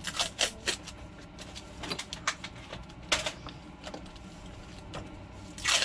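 Gloved hands handling a plastic Nerf blaster and masking tape: a scatter of short, irregular clicks and crackles, with a longer scratchy sound near the end.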